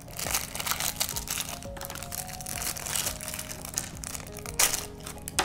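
Crinkling and crackling of a thin plastic blind-bag wrapper as hands open it, with louder crackles near the end, over background music with steady held notes.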